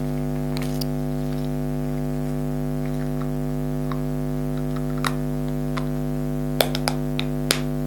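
Steady electrical hum made of a low tone with many evenly spaced overtones, with a few light clicks scattered through it, mostly in the second half.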